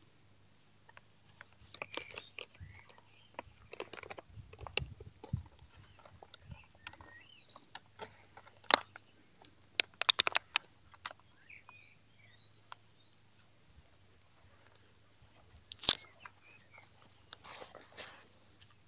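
A dog chewing on a green plastic object: irregular sharp crunches and crackles of plastic between its teeth, with a dense cluster about ten seconds in and one loud crunch near sixteen seconds.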